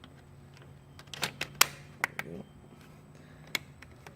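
Plastic bicycle chain guard being snapped together: a handful of sharp plastic clicks as its tabs are pushed into place, the loudest about a second and a half in, and one more near the end.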